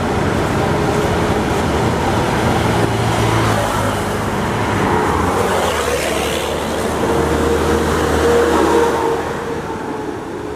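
Large diesel tour bus approaching and passing close by, its engine running steadily and getting loudest a little before the end, with other road traffic around it.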